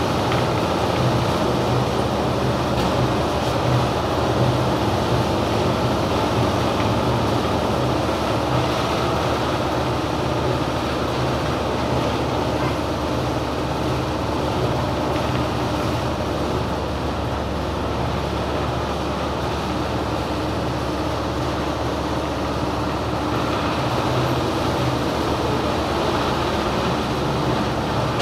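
Oil expeller and its drive running steadily under load: a loud, even mechanical drone with a constant low hum and no breaks.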